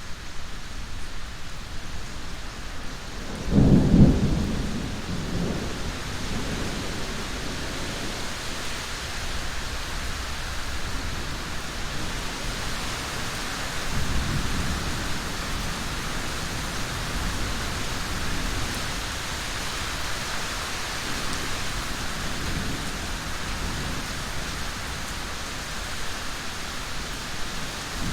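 Steady rain falling, with a loud low thunder rumble about four seconds in that fades over a couple of seconds, and a fainter rumble about fourteen seconds in.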